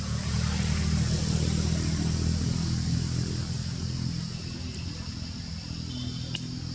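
Low engine rumble of a motor vehicle going by, swelling about a second in and easing off after about four seconds.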